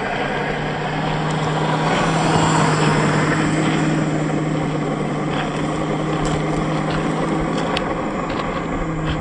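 1/10-scale RC crawlers' brushed 540 electric motors and geared drivetrains running with a steady hum, tyres crunching over loose gravel with scattered small pebble ticks.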